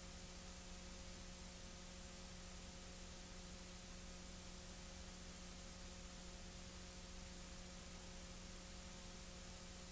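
Faint steady hiss with a low electrical hum and a few thin steady tones, unchanging throughout; no other sound is heard.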